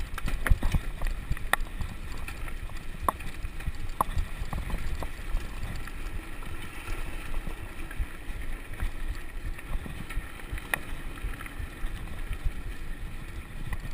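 Steady low rumble of wind buffeting a moving microphone, with scattered sharp clicks and knocks.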